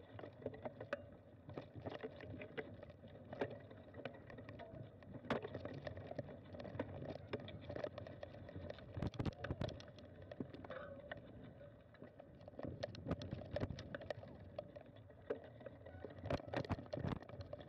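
Mountain bike rolling slowly over a rough dirt forest trail, with a steady low rumble and irregular rattles and knocks as it goes over bumps, thickest about halfway through and again near the end.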